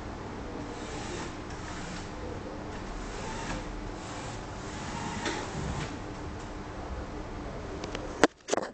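Small wheeled robot's electric drive motors and gears whirring steadily as it drives, with a sharp click just before the end.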